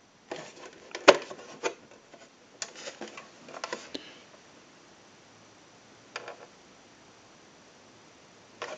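Handling noise from a Mickey Mouse telephone base being moved about: a run of clicks and knocks over the first few seconds, the loudest about a second in, then one more knock about six seconds in.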